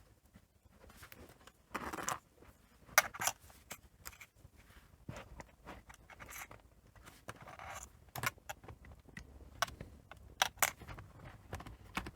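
Scattered small clicks, taps and scrapes of plastic and metal laptop parts and small tools being handled during reassembly.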